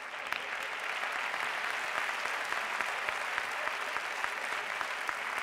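Audience applause: many hands clapping, swelling right at the start and then holding steady, with individual claps standing out.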